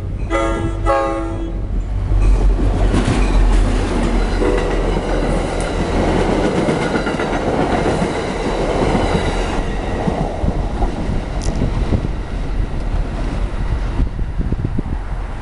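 NJ Transit commuter train passing a grade crossing: its horn sounds and cuts off about a second and a half in, then the train goes by with a loud steady rumble and wheel clatter on the rails.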